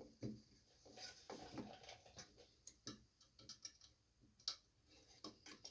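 Faint, scattered clicks and taps of small parts being handled as the choke rod is fitted to a mower engine's new carburetor. There are a few sharper ticks, the loudest about halfway through.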